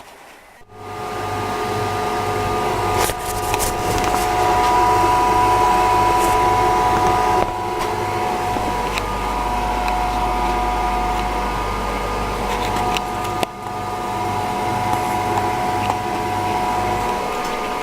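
The JML Dri Buddi heated clothes dryer's fan heater starts under a second in and runs with a steady hum and a high whine. A few light clicks and knocks occur now and then.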